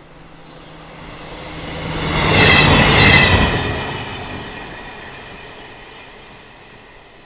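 A train passing by: its noise grows steadily, peaks about halfway through with a high squealing edge, then slowly dies away.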